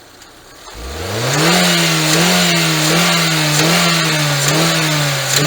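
Jeep Renegade engine revved up and held at full throttle against the brakes with the automatic in drive (a stall test), running steadily under heavy load with a harsh rattle on top. The rattle is the engine's 'grilado', detonation knock (pinging).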